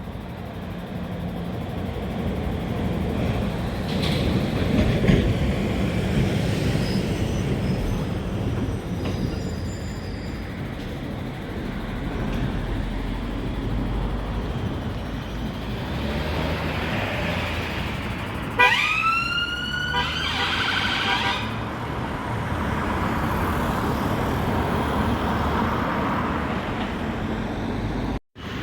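Traffic and vehicle engine noise on a road. About two-thirds of the way through, a police car's siren starts up sharply with a rising tone and stops after about three seconds.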